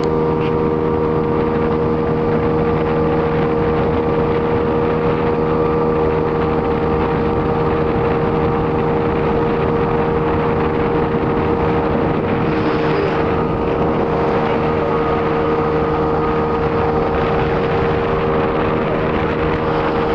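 Motorboat engine running steadily at an unchanging cruising speed, a constant drone over the rush of water and wind.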